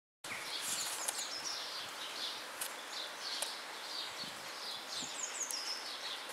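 Small birds chirping again and again over a steady outdoor hiss, with a few sharp clicks.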